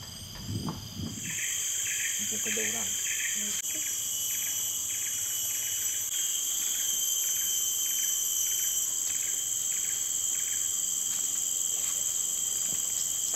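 Rainforest insect chorus: a loud, steady, high-pitched drone starts about a second in, with a second insect call pulsing about three times a second that stops after about ten seconds.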